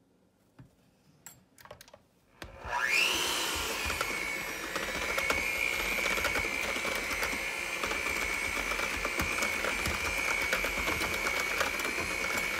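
An electric mixer switches on about two and a half seconds in, its whine rising quickly in pitch, then runs steadily as it mixes cake batter. A few light clicks come before it starts.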